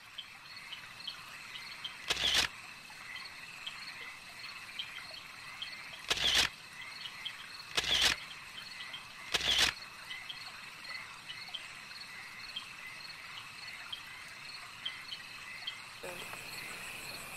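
Crickets chirping steadily in a rapid, even pulse, with four short loud bursts of noise cutting across it in the first ten seconds.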